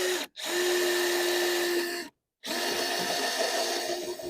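Power drill running in three bursts, a steady whine that sags slightly in pitch as each burst ends, typical of driving screws into wooden framing.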